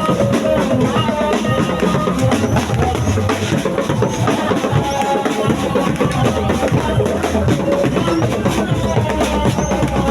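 Loud music with a heavy drum beat of bass drum and snare played through a big sound system.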